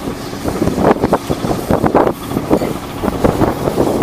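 Wind buffeting the microphone on the open deck of a tuna longline fishing vessel at sea, in irregular gusting rushes.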